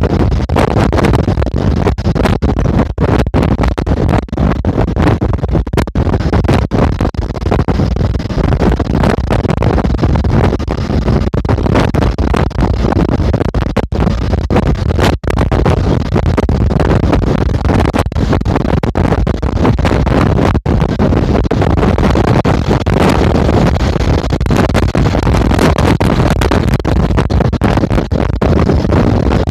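Steady wind and road noise from a moving bus, loud and rushing, with wind buffeting the microphone. The sound cuts out for an instant now and then.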